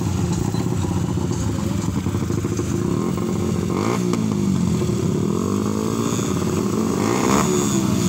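Small 125 cc motorcycle engines running and being raced; from about four seconds in, the revs climb and drop repeatedly, with more than one engine heard at once.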